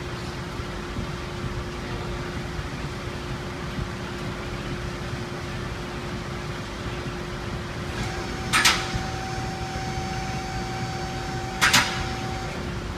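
Freshly rebuilt Toyota 2AZ-FE 2.4-litre inline-four running at a steady idle, a constant hum with a steady tone. Two sharp metallic clanks, about three seconds apart, ring briefly over it.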